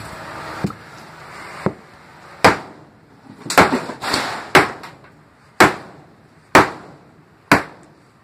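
A hammer striking repeatedly, about once a second, smashing a small plastic microphone adapter against a concrete floor. The first two blows are lighter; the rest are louder and sharper.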